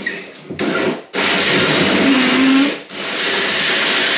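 Cordless drill driving a hole saw up through the ceiling to cut a downlight hole. After a couple of short bursts it cuts steadily from about a second in, dips briefly near three seconds in, then cuts on.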